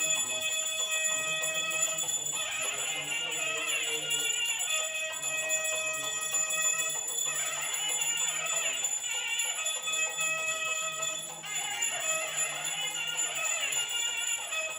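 Pooja hand bell ringing continuously, with devotional music going on underneath in phrases every few seconds.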